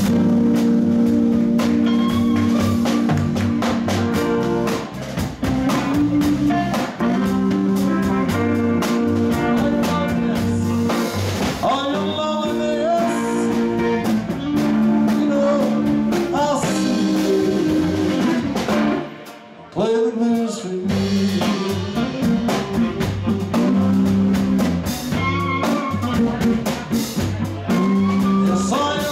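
Live band playing, electric guitar over a drum kit. The band stops for about a second roughly two-thirds of the way through, then comes back in.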